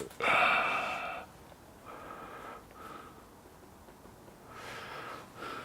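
A person breathing close to the microphone: one loud exhale about a quarter second in, then several softer breaths.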